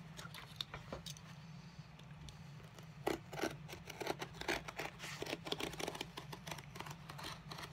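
Hand tools working a leather shoe's bottom during heel and sole removal: quiet, irregular snipping, scraping and clicking that grows busier about three seconds in.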